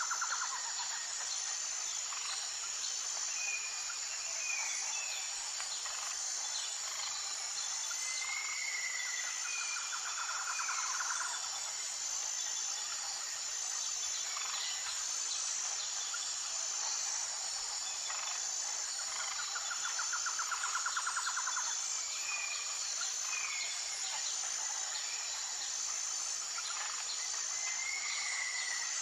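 Jungle ambience: a steady, high-pitched insect chorus with an even pulse, scattered short bird calls, and two stretches of fast trilling, about ten seconds in and again about twenty seconds in.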